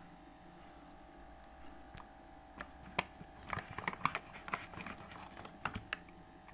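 An irregular run of light clicks and knocks, about a dozen, starting about two seconds in and stopping shortly before the end, over a faint steady hum.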